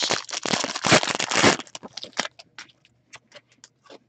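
A 2015-16 Upper Deck Contours hockey card pack wrapper crinkling and tearing open for about a second and a half, followed by a run of light clicks and snaps as the cards are handled.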